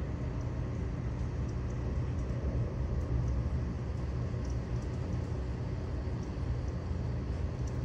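Steady low rumble of storm wind buffeting the microphone, with a few faint high ticks.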